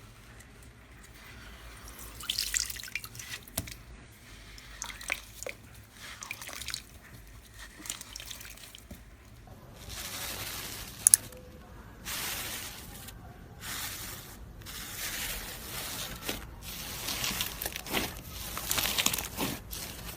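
Slime being squished and worked by hand: wet, sticky clicks and crackles coming in irregular bursts.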